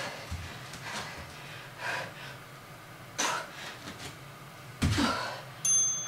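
A woman breathing hard from exertion during a bodyweight workout: a few short, sharp, gasping exhales spaced a second or so apart, the loudest near the end.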